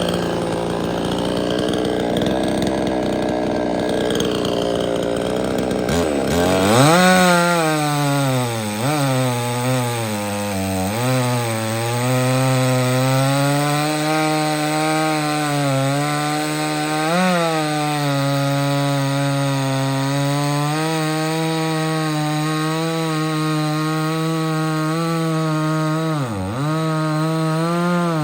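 58cc two-stroke chainsaw with a 20-inch bar cutting through a thick red oak log at high revs under heavy pressure. For the first six seconds or so the sound is harsh and noisy. Then the engine note turns steady, and its pitch dips sharply several times as the chain bogs in the wood, recovering each time.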